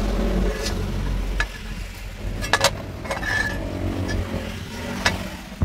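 Metal objects clinking and knocking in a workshop, about five separate sharp knocks, one of them a quick double and one ringing briefly, over a low rumble that fades after the first second and a half.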